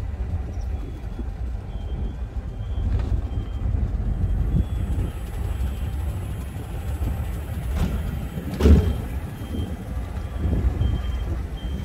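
Low, steady rumble of a vehicle on the move, with a sharp thump about nine seconds in. Faint short high beeps come and go.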